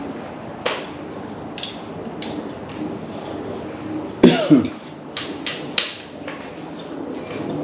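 Scattered clicks and knocks of splitter brackets, parts and tools being handled during fitting. The loudest is a knock about four seconds in, followed by a brief falling tone, then a quick run of sharp clicks.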